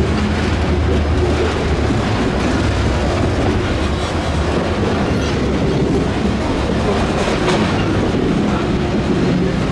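Freight train cars, covered hoppers and then a tank car, rolling past close by. Their steel wheels make a steady rumble on the rails.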